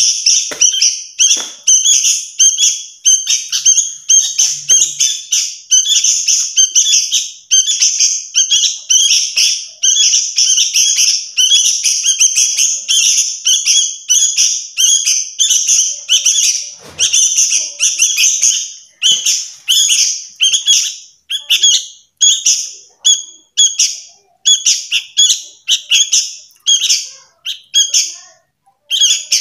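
Two young sooty-headed bulbuls begging for food with loud, noisy, rapid calls. The calls run almost without a break for the first half, then come as separate calls about once or twice a second.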